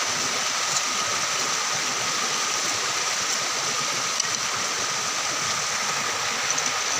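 Steady rush of a small stream running over rocks, with a thin, steady high tone above it.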